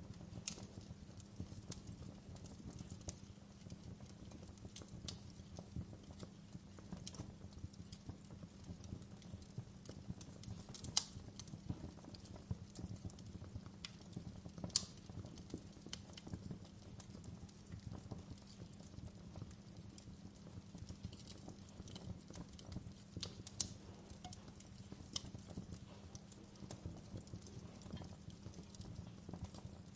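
Wood fire burning in a fireplace, crackling with irregular sharp pops and snaps over a low steady rush; a few louder pops stand out about eleven, fifteen and twenty-three seconds in.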